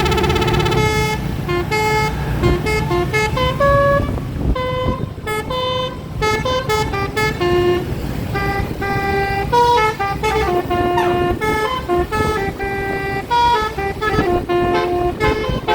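A tour bus's basuri telolet horn playing a tune. It opens with a quick warbling run, then goes on as a string of held and short notes stepping up and down, over a low engine and road rumble.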